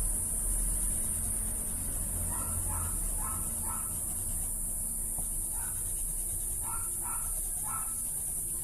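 Short animal calls in runs of three or four, heard twice, over a steady high hiss and a low hum.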